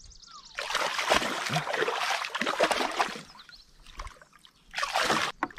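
Water splashing as a hooked largemouth bass thrashes at the surface while it is brought in, in two bouts: a long one of about two and a half seconds, then a short one near the end.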